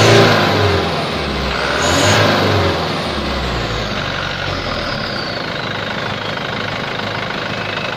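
Mitsubishi Canter turbo diesel engine revved twice, each rev bringing a high turbo whistle, then settling back to idle while the turbo's whine slowly falls in pitch and fades. The exhaust-brake flap is set about three-quarters open so the exhaust strikes the flex-pipe wall and makes the turbo sound louder; the turbo sound is very clear.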